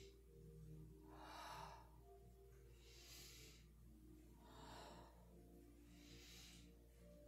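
Slow, deep yogic breaths, faint: four soft breaths in and out, about one every second and a half, as she leans into and out of a standing hamstring stretch.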